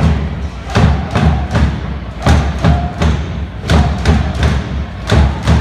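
A supporters' drum beaten in a steady rhythm, two to three strokes a second, with crowd voices chanting along in the echoing hall.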